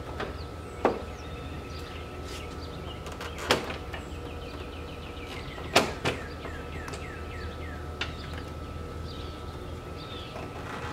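Large crescent wrench on the Land Rover's fan nut being tapped to tighten it: three sharp knocks a couple of seconds apart, with a couple of lighter knocks after the third.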